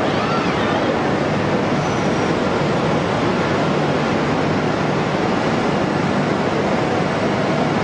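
Automated Okuma CNC machine running while machining a crankshaft: a loud, steady rushing noise with a low rumble under it.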